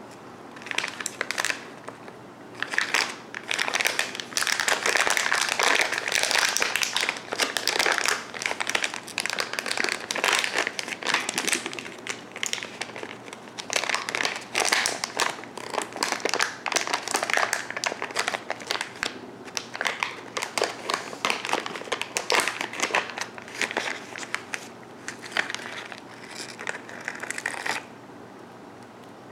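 Plastic candy bag of Sour Patch Kids lollipops crinkling as it is worked open and handled by hand, in irregular bursts from about a second in until near the end.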